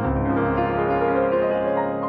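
Background music on piano, a new low note sounding at the start.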